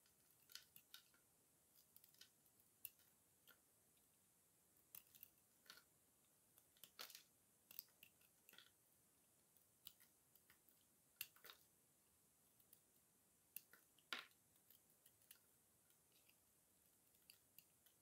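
Utility-knife blade cutting into a dry bar of soap, with the soap also crumbled between the fingers: faint, irregular crisp crunches and scraping clicks, a few louder snaps among them.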